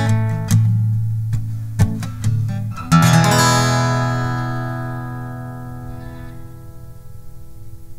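Acoustic guitar picking single notes, then a final chord strummed about three seconds in that rings out and slowly fades away, closing the song.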